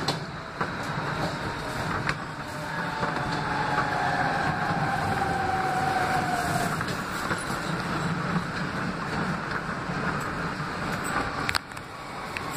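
R160B Siemens subway car running, heard from the front of the car: a steady rumble of wheels on rail, with a faint motor whine that falls slowly in pitch and fades out as the train slows. A single sharp click near the end.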